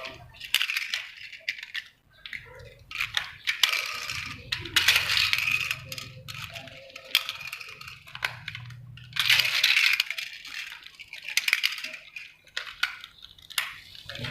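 Plastic toy race track and toy cars being handled: repeated clicks and clatters of hard plastic, with two longer stretches of rattling noise.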